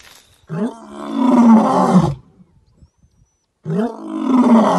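A lion roaring: two long roars, one starting about half a second in and the second near the end, each sliding up at the start and falling away at the end.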